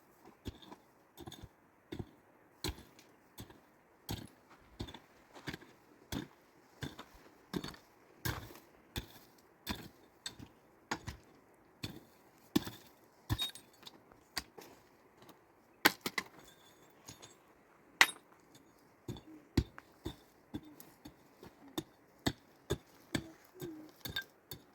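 Repeated sharp blows of a hand tool striking a hard material, about three every two seconds in a steady working rhythm, each with a brief ring; two louder blows come near the end.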